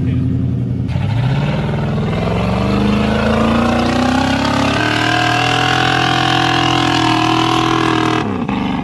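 Modified off-road trial truck's engine revving hard under load as it climbs out of mud. It runs low for about a second, then rises steadily in pitch, shifts just before five seconds, holds at high revs and drops off near the end.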